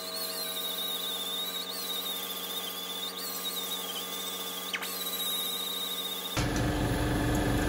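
Electric grinder running as it grinds fresh welds flat on steel, a steady high whine over a low hum that dips and wavers each time the disc bites the metal. Near the end it gives way abruptly to a louder, rougher noise.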